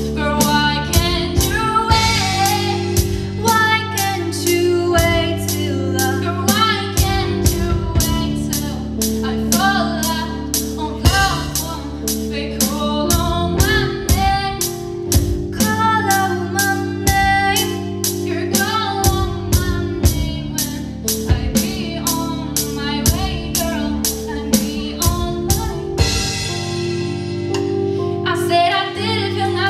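Live pop-rock band: female lead vocals over keyboard, electric guitar and a drum kit keeping a steady cymbal beat. The drums drop out for a couple of seconds near the end, then come back in.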